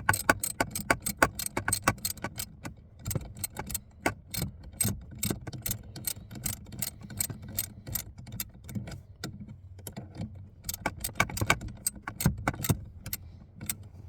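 Ratchet of a socket wrench clicking in quick runs as it is swung back and forth, loosening a 10 mm bolt on a brake light switch.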